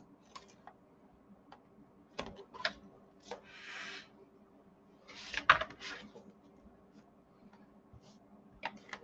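Chipboard and cardstock handled on a cutting mat: scattered light taps and clicks, a short rustling swish about three and a half seconds in, and another cluster of rustles and clicks around five to six seconds. A faint steady hum runs underneath.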